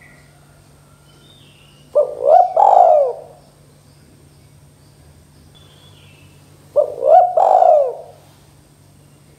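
Spotted dove cooing: two phrases about five seconds apart, each a short note, a second short note and a longer falling note.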